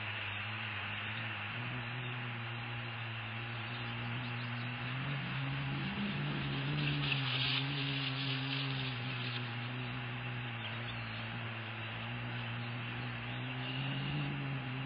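Steady low hum with a hiss, its pitch wavering slightly, as picked up by a live nest-camera microphone. About seven seconds in, a brief high scratchy flurry lasting a couple of seconds comes as an adult osprey lands on the nest.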